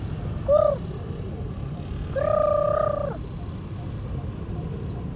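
Pigeon cooing: a short coo about half a second in, then a longer, steady coo lasting about a second, over a steady low background rumble.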